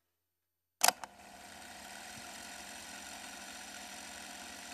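A sharp click about a second in, then a steady electronic hum with hiss: a static sound effect laid over a glitch transition.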